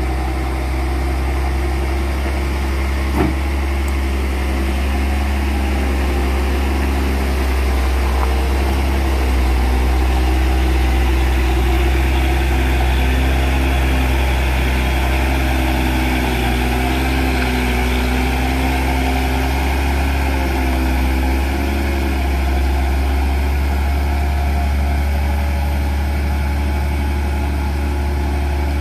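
Hino 500 Ranger truck's diesel engine running steadily at low revs as it pulls slowly up a steep hairpin. One short sharp click about three seconds in.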